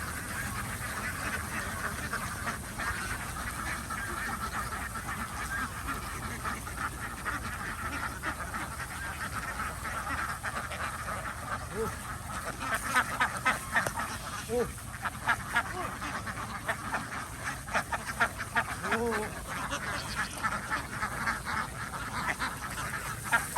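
A flock of ducks quacking continuously. About halfway through, the calls thicken into bursts of rapid, louder quacks.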